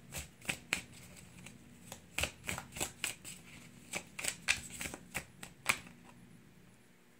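A deck of tarot cards shuffled by hand, with quick irregular flicks and slaps of card on card, about three a second with a brief pause near two seconds in. The shuffling stops a little before six seconds in.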